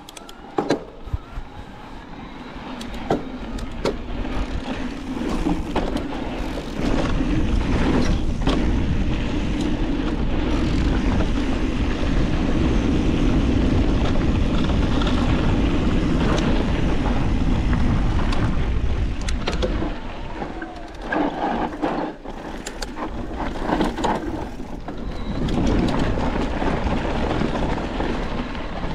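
Mountain bike descending a rocky dirt trail: tyres rumbling over dirt and rock with wind rushing past, and sharp knocks and rattles from the bike over bumps. It builds over the first few seconds as speed picks up, is loudest through the middle, and eases briefly about two-thirds of the way through.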